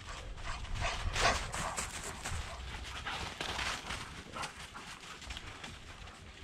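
Footsteps crunching through fresh snow from a walker and several Weimaraners moving about, with a dog making some noise among them. The crunching comes in uneven bursts, busiest about a second in and again around three to four seconds in.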